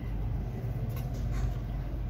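Socket wrench on an extension bar turning a suspension arm bolt: a few faint metal clicks over a steady low rumble.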